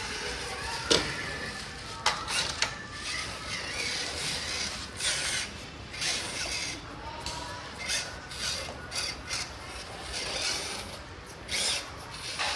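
Micro RC crawler driving through loose sand: its small motor and gears whir with a wavering pitch under irregular scraping and clicking.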